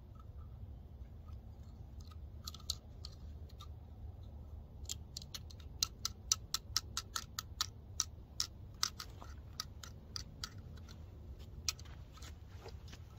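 A run of small sharp clicks, a few a second, densest in the middle, over a steady low rumble.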